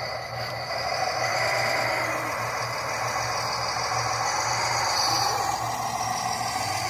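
Radio-controlled model vehicle running: a steady mechanical hum with a whine over it, without pause.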